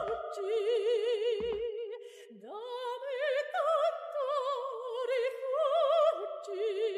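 Operatic singing: a high voice holds long notes with wide, even vibrato, moving slowly between pitches. Two brief low thuds sound, one right at the start and one about a second and a half in.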